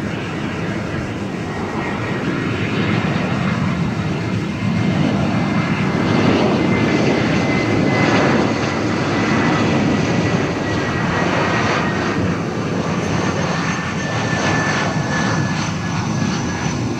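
Airbus A319 airliner on final approach with its landing gear down, its jet engines passing: a dense rumble that swells and then eases off, with a thin fan whine running through it that drifts slightly lower in pitch as it goes by.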